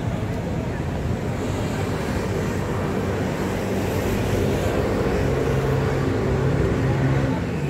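Steady city street traffic noise: a continuous low rumble with an engine-like hum that grows stronger about halfway through.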